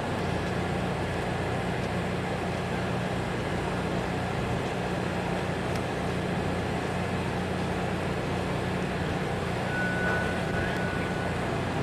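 Steady low rumble of heavy engines and machinery running continuously, with a faint high tone sounding briefly about ten seconds in.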